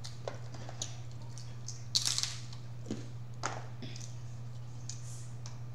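Crab shells being cracked and eaten: scattered clicks and snaps with one sharp crack about two seconds in, over a steady low hum.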